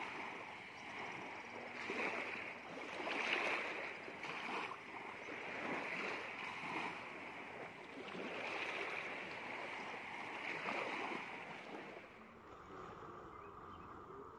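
Small waves washing up on a sandy beach, swelling and easing every couple of seconds. Near the end the wash gives way to a quieter, steady high-pitched animal chorus.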